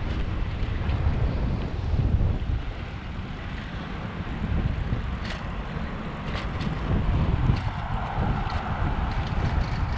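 Wind buffeting the microphone of a bicycle-mounted camera while riding at speed, a steady low rumble, with a few light clicks from the bike. A faint hum joins from about seven seconds in.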